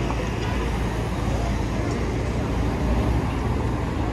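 Busy city street ambience: a steady rumble of road traffic with indistinct voices of passersby.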